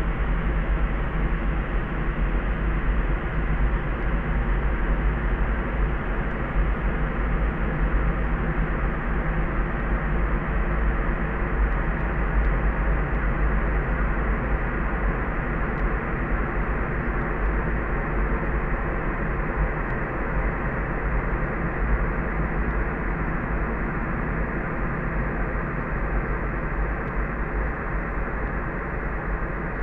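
Steady, soft layered sleep noise, deep and muffled, with its weight in the low rumble and no hiss on top. It grows a little duller toward the end.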